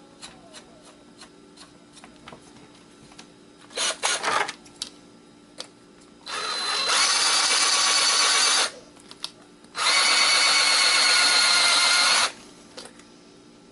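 Power drill running a screw extractor bit to back out screws: a short burst about four seconds in, then two steady runs of about two and a half seconds each with a motor whine. Light clicks of handling come before.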